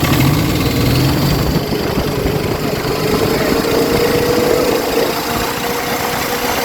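Engine running steadily with a freshly repaired turbocharger fitted, on a test run to see whether its previously stuck actuator now moves. A faint tone climbs slowly in pitch a couple of seconds in, then holds.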